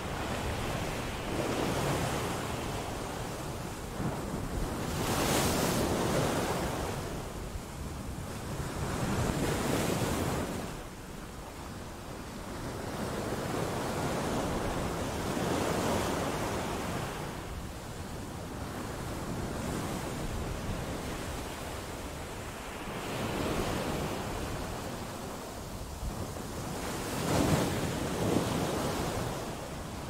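Sea waves breaking and washing against rocks, the surf rising and falling every few seconds, with the loudest crash near the end.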